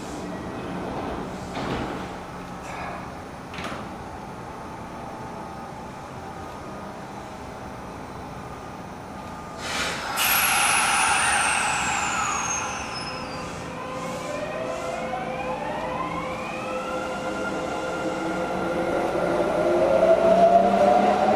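Kintetsu 5800 series electric train starting off from the platform. A sudden hiss about ten seconds in is followed by a high whistle falling in pitch, then the inverter-driven traction motors whine, rising in steps and growing louder as the train accelerates away.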